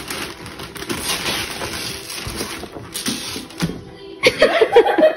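Wrapping paper rustling and tearing as a large gift box is unwrapped. About four seconds in, a voice breaks into loud, excited sounds of surprise.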